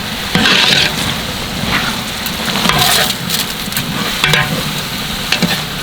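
Masala of tomato, ginger-garlic and chilli sizzling in a large biryani pot as it is stirred, with repeated scraping strokes of the stirring spoon against the pot about once a second.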